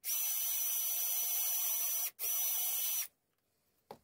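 Cordless drill running with a steady high whine as its bit drives into a wooden trim strip: one run of about two seconds, a brief stop, then about a second more.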